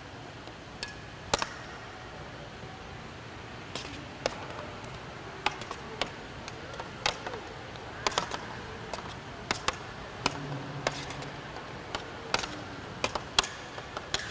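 A metal spoon clinking and tapping against a metal sheet pan as meatballs are moved off it into a pan of sauce. The clinks are sharp and irregular, about one or two a second.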